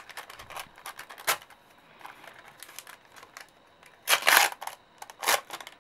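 A small translucent paper packet being pulled and torn open by hand: light crinkling and small clicks, with two louder tearing rustles about four and five seconds in.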